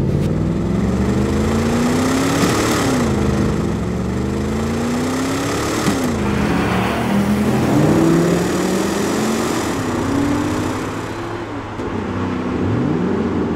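Ford Mustang Dark Horse's 5.0-liter V8 accelerating, its pitch climbing and then dropping at upshifts about two and a half and six seconds in, followed by uneven revving and a quick rising rev near the end.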